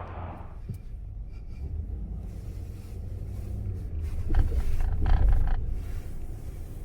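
Low, steady rumble of wind buffeting the microphone, swelling in a gust about four to five seconds in. Passing road traffic fades out in the first half second.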